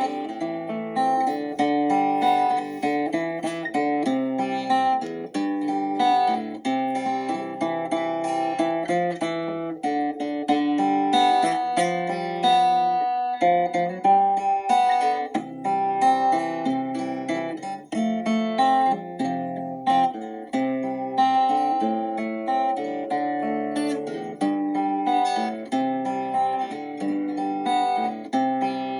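Instrumental acoustic guitar music, gently picked and strummed at a relaxed pace.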